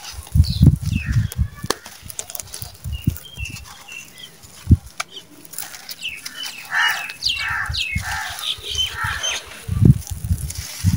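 Hands squeezing and crushing dry red dirt clods close to the microphone: crunchy, gritty crumbling in clusters at the start, a single sharp crunch around the middle, and more near the end. Between about six and nine seconds, a run of animal calls sounds in the background.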